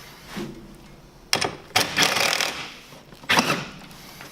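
Clattering and clinking of metal bolts, washers and parts being handled and fitted through the bumper holes. There are three bursts: a sharp one just past a second in, a longer rattling one about two seconds in, and another sharp one near the end.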